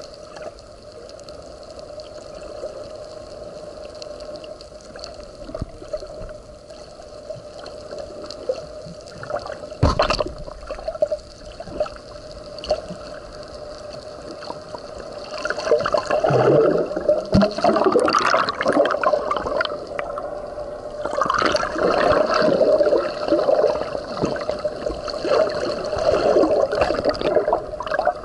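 Underwater, a scuba diver's exhaled air gurgles and bubbles out of the regulator in two long bursts in the second half, over a steady hum. A single knock comes about ten seconds in.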